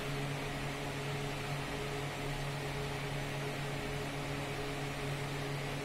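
Steady low mechanical hum with a fainter higher tone over it, unchanging throughout: room tone.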